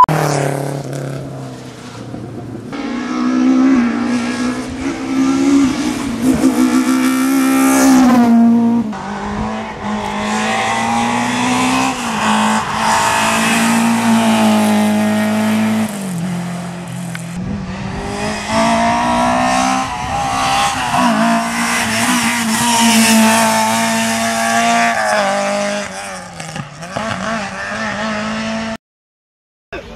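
Rally cars at full throttle passing one after another, engines revving high and dropping back between gear changes, with sudden cuts from one pass to the next.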